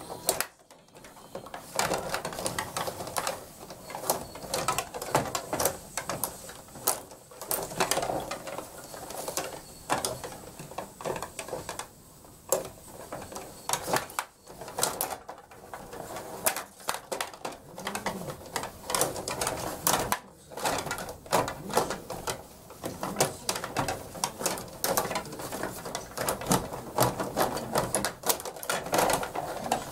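Stiga rod table hockey game in play: a fast, irregular clatter of clicks and knocks as the control rods are pushed, pulled and spun, turning the plastic players against the puck.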